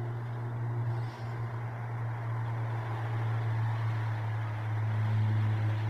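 Distant road traffic heard as a steady low hum, with an even wash of noise over it.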